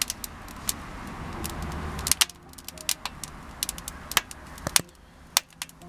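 Wood fire crackling in small wood-gas backpacking stoves: irregular sharp pops and snaps from burning twigs, with a low rushing noise for the first two seconds.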